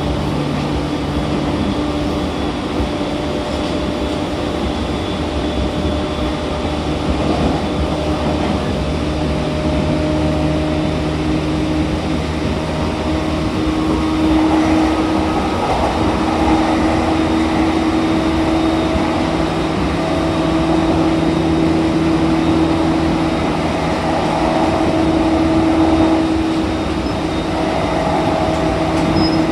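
Running sound inside a JR East E231 series 1000-subseries commuter train, with rail rolling noise under a steady traction-motor hum of several held tones. It gets a little louder about halfway through.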